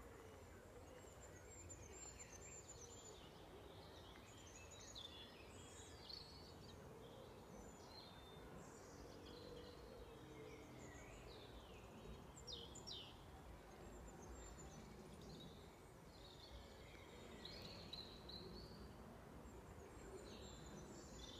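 Faint birdsong: scattered short chirps and whistles from several birds, over a low steady background rumble.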